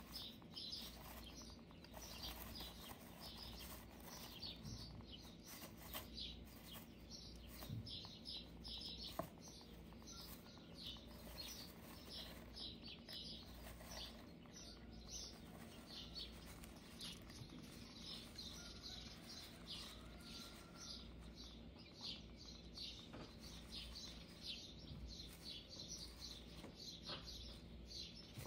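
Hamster burrowing under wood-shaving bedding: faint, continuous rustling and crackling of the shavings, with a sharper click about nine seconds in.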